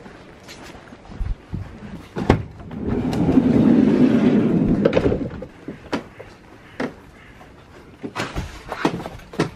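Knocks, clunks and clicks of belongings being carried and packed into a camper van, with a louder rumbling noise lasting about two seconds in the middle.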